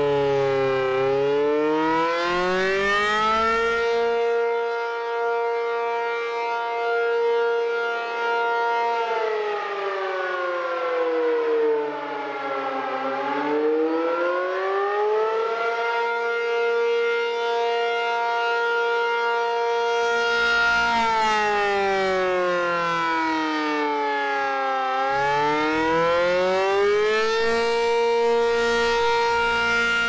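ACA P-50 rotating electromechanical siren sounding the full attack (wail) signal, very loud. Its single tone drops in pitch, climbs back and holds at the top for several seconds, three times over, as the horn sweeps round.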